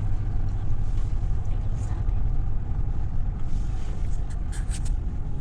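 Vehicle driving over a snow-covered road, a steady low rumble, with a few short clicks a bit over four seconds in.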